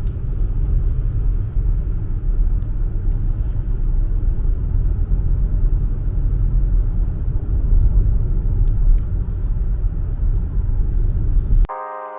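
Steady low rumble of a moving car heard from inside the cabin: engine and road noise while driving. It cuts off abruptly just before the end, where bell-like holiday music begins.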